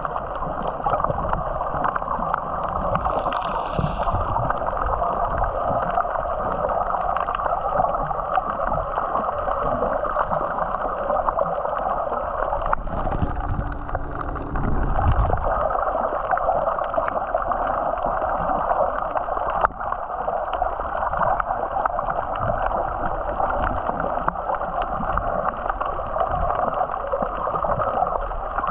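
Steady rushing noise of a yacht under way at sea: water rushing and gurgling along the hull over a low rumble.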